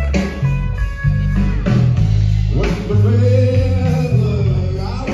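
A live blues band playing amplified through a stage PA: bass notes and electric guitar. In the second half a long, wavering note rides over them.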